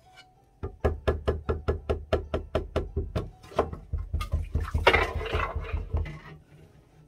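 A silicone spatula slapping and spreading thick, hot acorn starch jelly in a stainless steel tray: a quick, even run of wet slaps about five a second, growing irregular with a short scrape about five seconds in.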